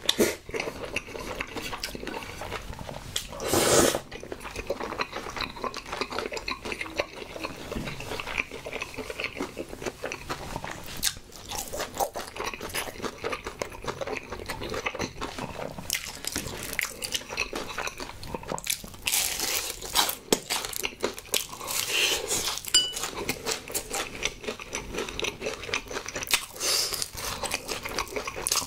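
Close-miked chewing of a mouthful of cream pasta, with crunchy bites into a honey-glazed fried chicken drumstick near the end.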